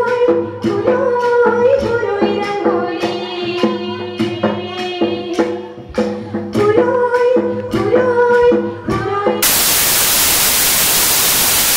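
Mech Kachari folk dance music: a melody of held, slightly gliding notes over a percussion beat of about two strikes a second. About nine and a half seconds in the music cuts off and a loud, steady hiss of static takes over.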